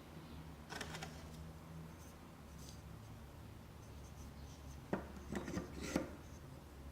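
Light scraping and then a few sharp clicks, like small wooden toy pieces being handled and set down, over a steady low hum.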